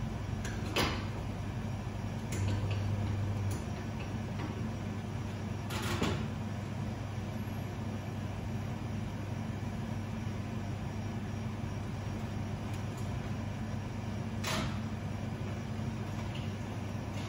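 Steady low electrical hum of café equipment, with a few scattered sharp metal clicks and knocks as parts and tools are handled at an espresso machine's group head.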